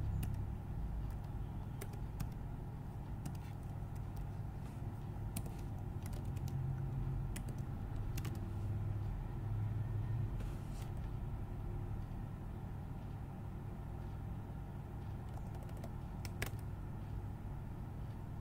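Computer keyboard keystrokes, a scattered handful of single presses spaced a second or more apart, over a steady low hum.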